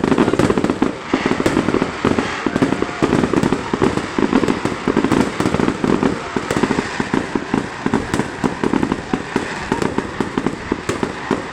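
Fireworks going off: a rapid, unbroken run of sharp pops and bangs.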